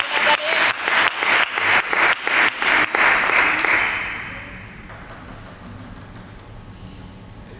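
Spectators clapping after a point in a table tennis match, fast even claps about four a second that fade out about four seconds in, leaving a quiet hall.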